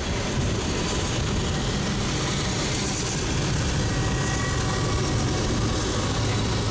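Freight train of covered hopper cars rolling through a grade crossing: a steady rumble and clatter of steel wheels on rail, heard from inside a car. Near the end a low, steady engine hum comes in as a diesel locomotive approaches.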